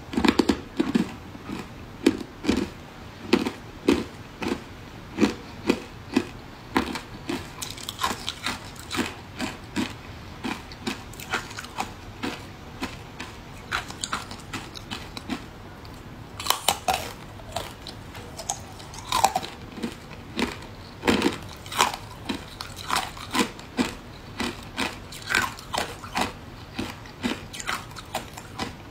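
Ice dusted with matcha powder being bitten and chewed, a steady run of crisp crunches a little more than once a second, close-miked. The crunches grow sharper and brighter about halfway through.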